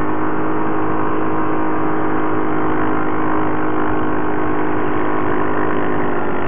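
Yamaha ATV fitted with Commander WS4 rubber track kits, driving steadily across snow with its engine holding one even, unchanging drone.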